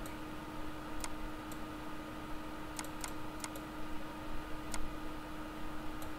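A handful of short, sharp computer mouse clicks, irregularly spaced, over a steady electrical hum and background hiss.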